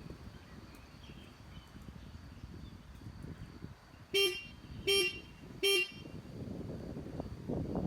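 Three short beeps of an ATV horn, about two-thirds of a second apart, from a 2021 CFMOTO CForce 1000, over a low background rumble.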